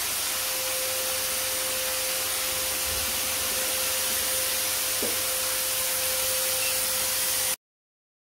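Electric disinfectant fogger running steadily: a motor whine under a strong airy hiss as it blows out the spray mist. The sound cuts off suddenly near the end.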